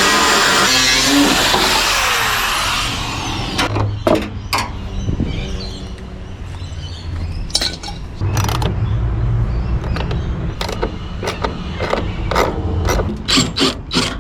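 Power drill running and winding down with a falling whine, then a low hum and a string of sharp metallic clicks and knocks as washing machine parts are worked apart.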